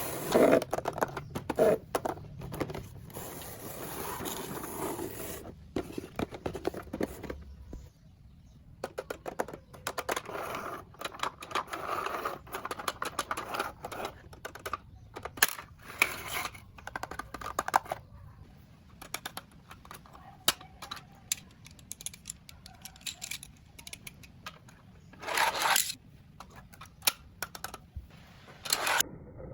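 Hands unboxing and handling plastic toys and their packaging: irregular crinkling and scraping with many small sharp clicks, and a louder rustle near the end.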